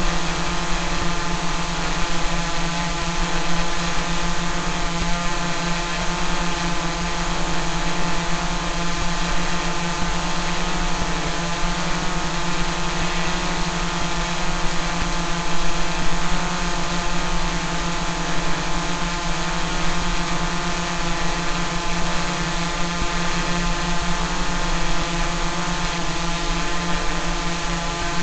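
Quadcopter drone hovering: a steady buzz from its motors and propellers, holding one pitch throughout.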